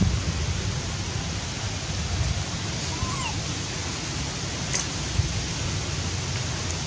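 Steady outdoor noise hiss with an uneven low rumble, as of wind on the microphone. A faint short call rises and falls about three seconds in, and there is a brief click shortly before the end.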